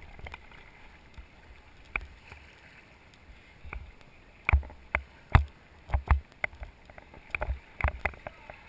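Paddles knocking and splashing around an inflatable river raft: a run of sharp, irregular knocks over low water noise, the loudest ones clustered in the middle and near the end.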